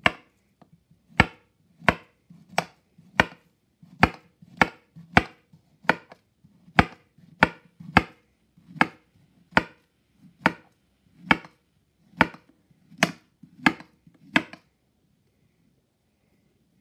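Knife chopping a banana into pieces: about twenty sharp, evenly spaced chops, roughly three every two seconds, stopping near the end.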